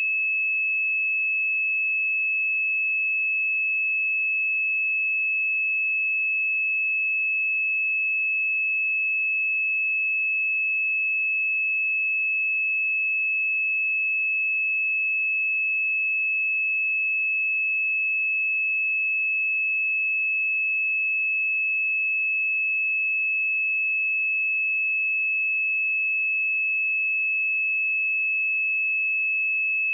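A pure 2597 Hz sine-wave test tone, one steady high-pitched note held unchanged at constant level.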